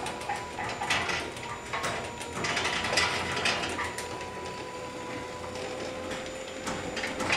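Chain-drive garage door opener running, its chain and trolley pulling the sectional door open along the rail: a steady motor hum with the rattle of the chain.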